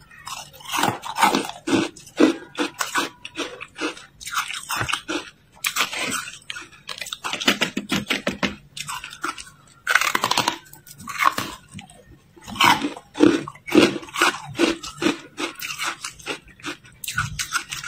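Ice being bitten and chewed in the mouth close to the microphone: an irregular run of sharp cracking crunches as pieces of matcha-dusted ice break between the teeth, loudest about ten seconds in.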